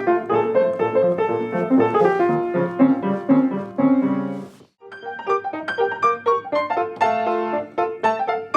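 Solo piano playing swing-jazz style music. It breaks off briefly about halfway through, then picks up again.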